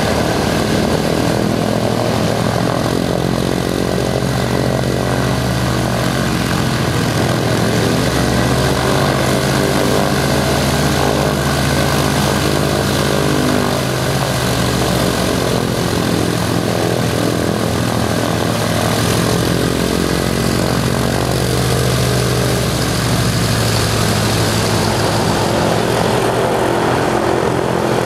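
A Douglas DC-3's two Pratt & Whitney radial engines running steadily on the ground, an even propeller drone whose pitch shifts slightly now and then.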